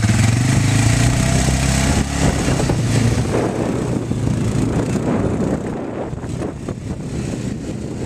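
Can-Am quad ATV engine running steadily close by, then, about two seconds in, turning rougher and slowly fading as the ATV pulls away across the sand.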